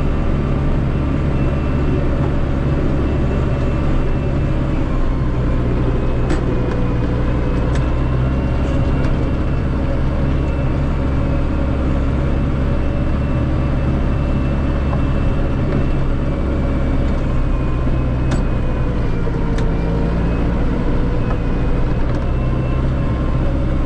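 Massey Ferguson 5445 tractor's Perkins 4.4-litre common-rail diesel running steadily, with a faint whine that wavers in pitch and a few sharp clicks.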